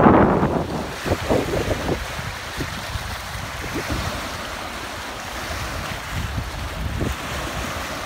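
Wind buffeting the microphone over choppy waves of the Dniester Estuary washing along the shore. A strong gust at the start eases off by about two seconds in, leaving a steadier rush of wind and water.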